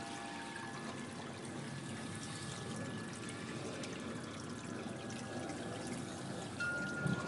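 Water steadily pouring and trickling into a garden koi pond.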